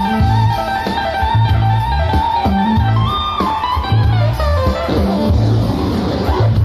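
Live jazz-fusion band playing: a repeating low electric-bass figure with drums under a high, guitar-like lead line that slides down in pitch about four seconds in.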